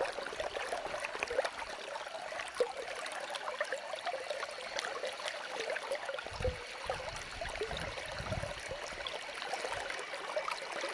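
Steady rush of flowing river water, with small ticks from a spinning reel being wound in on a small hooked fish. A few low thumps come about two-thirds of the way through.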